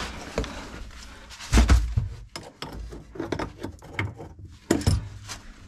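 Irregular knocks, clicks and rattles of hard objects being handled, with two heavier thumps, one about a second and a half in and one near the end.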